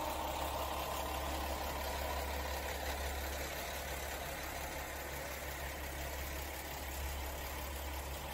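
Diesel engine of a KiHa 40 series railcar running with a steady low hum as the train rolls slowly past.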